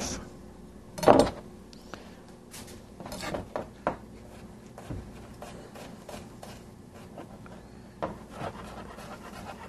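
Kitchen knife trimming the brown ends off garlic cloves on a cutting board: one loud knock of the blade on the board about a second in, then scattered light taps and scrapes.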